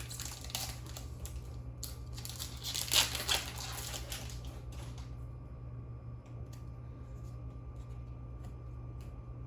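Trading-card booster pack wrapper being torn open and crinkled, loudest about three seconds in, then dying down to a few faint ticks.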